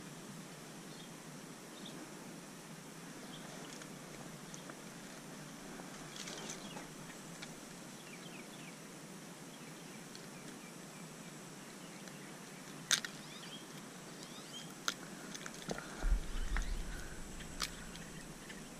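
Faint steady outdoor ambience, then a few sharp clicks in the last third as a hard plastic lure's hooks are worked out of a small largemouth bass's mouth, with a brief low bump near the end from handling.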